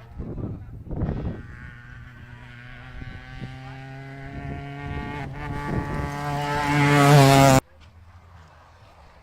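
Rally car engine at high revs, approaching and growing steadily louder with its pitch rising slightly. It cuts off abruptly about seven and a half seconds in. A few loud bursts come in the first second or so.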